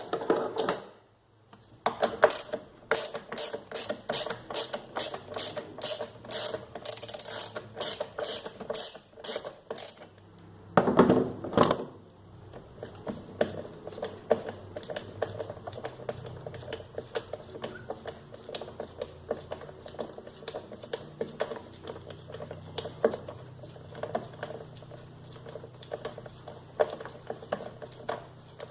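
Ratchet wrench clicking in repeated strokes, about two a second, as a fastener is turned during a gearbox oil change. A louder clatter comes about eleven seconds in, then fainter, irregular ratcheting follows.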